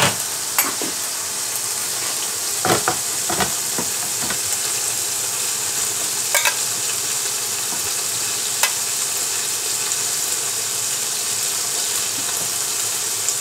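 Steady sizzle of ribeye steak frying in a pan on low heat. A metal spoon clinks and scrapes against a steel saucepan a few times as cooked potatoes are spooned out.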